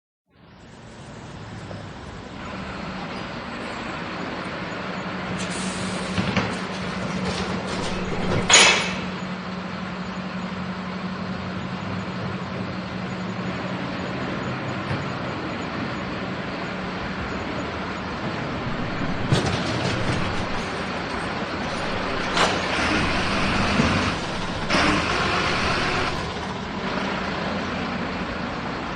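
Garbage truck running steadily while collecting bins. There is a loud bang about a third of the way in, and more clanks and louder working noise about two thirds through.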